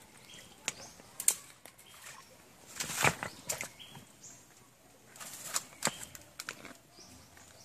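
Leaves and undergrowth rustling as they are pushed aside by hand, with scattered sharp snaps and clicks, the loudest about a second in and about three seconds in.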